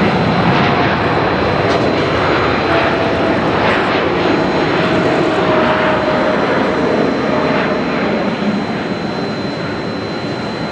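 Boeing 747-8F freighter's four GEnx-2B jet engines at takeoff thrust as it lifts off and climbs away: a loud steady rush with a thin high whine, easing slowly near the end.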